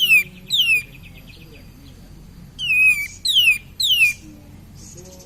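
Kapas tembak, a bulbul, singing: about five sharp whistled notes, each sliding steeply down in pitch. They come as a pair at the start and a group of three about three seconds in.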